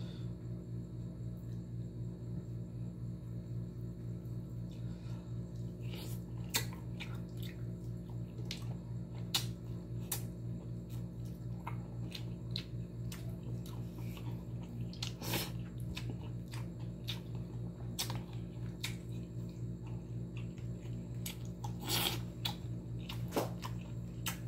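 Eating sounds of fish and rice eaten by hand: scattered short smacks and clicks of chewing, over a steady low hum.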